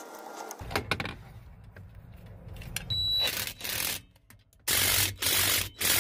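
A few light metal clinks, then a hand ratchet wrench worked in a run of quick rasping strokes from about halfway through. The nuts holding the master cylinder to the brake booster are being tightened.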